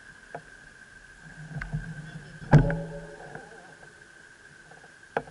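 A sharp knock with a brief low humming ring after it about halfway through, and a smaller click near the end, over a steady high-pitched whine.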